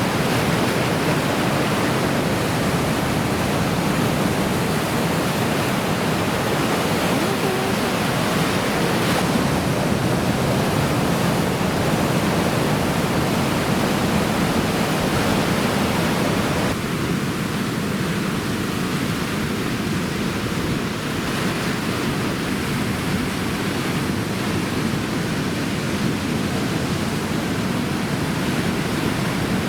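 Steady roar of heavy surf from a typhoon swell, a dense even rush of breaking waves and whitewater. About seventeen seconds in, the sound shifts slightly, as at a cut to another shot.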